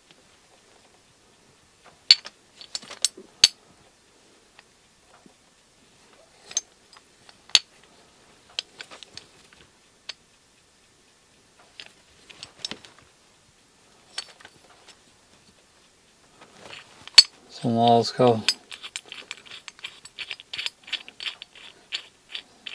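Metal clicks and knocks as a steel ball joint puller is handled and a steel caliper is set against its jaws. Near the end comes a fast run of small ticks as the puller's bolt is screwed through its threaded arm, with a short murmur of voice just before.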